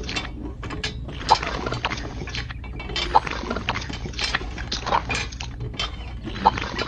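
Wet miniature concrete mix sloshing, with irregular clinks and small knocks of grit and stones, over a steady low hum.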